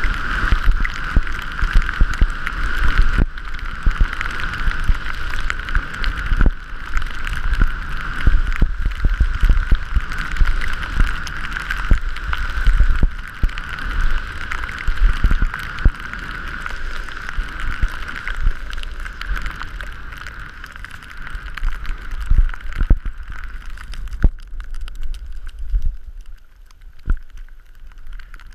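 Wind buffeting the microphone and skis scraping and chattering over snow during a fast downhill run. It eases and grows quieter near the end as the skier slows.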